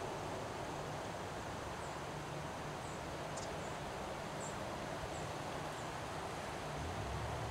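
Steady wind of an autumn windstorm rushing through trees, with a low rumble that grows a little near the end. A few faint, short, high chirps sound over it in the middle.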